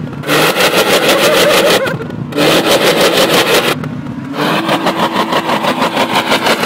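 BMW car engine revved hard in three bursts of about two seconds each, with short dips between them. Each burst carries a rapid, even stutter of about ten crackles a second.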